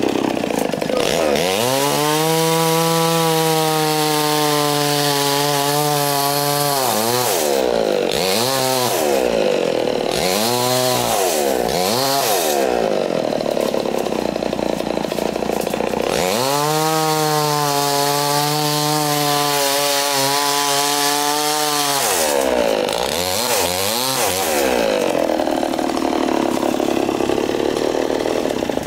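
Two-stroke chainsaw engine run up to high revs and held there for several seconds, twice, with quick blips of the throttle rising and falling in between; the engine sound drops away sharply at the very end.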